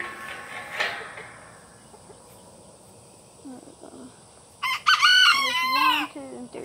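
A rooster crowing once, about five seconds in, a loud call of about a second and a half, with a few faint chicken sounds just before it.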